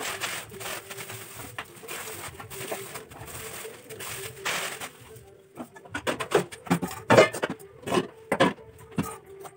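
A plastic bag rustling as it is handled, then a run of sharp knocks and clatters of kitchen things being moved about over the last few seconds.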